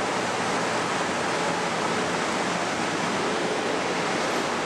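Steady, even rushing noise of the air conditioning in a KTM Komuter electric commuter train car standing still before departure.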